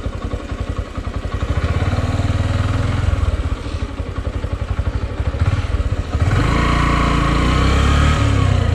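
Motorcycle engine running while riding, its rapid firing pulses plainly heard. The throttle opens about a second and a half in and again more strongly about six seconds in, then the engine pitch falls away near the end.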